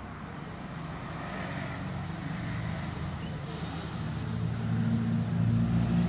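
A motor engine hum that grows louder in the second half, like a vehicle drawing near.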